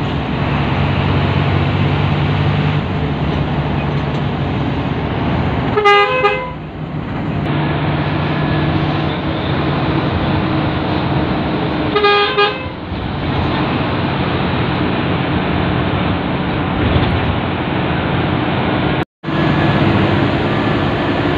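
Intercity bus engine and road noise running steadily, with two short horn blasts about six seconds apart. The sound drops out for a moment near the end.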